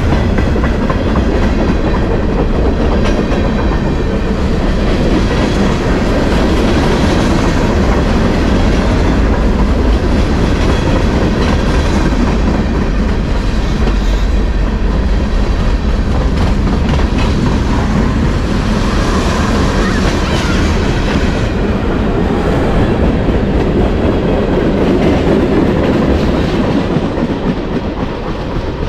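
Freight train cars rolling past close by: a loud, steady rumble of steel wheels on rail with clickety-clack over the rail joints. The sound eases off slightly near the end as the last cars move away.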